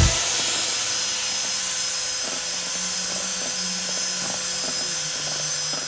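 Electric mixer running steadily at low speed, its beaters whipping egg whites and sugar into meringue.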